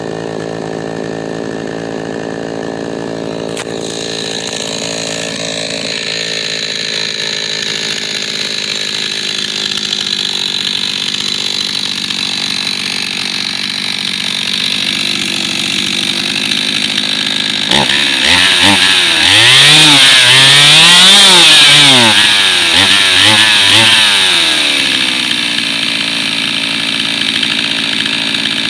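Jonsered 535 two-stroke chainsaw idling on the ground. About two-thirds of the way in it is revved up and down several times in quick succession, loudest there, then drops back to idle.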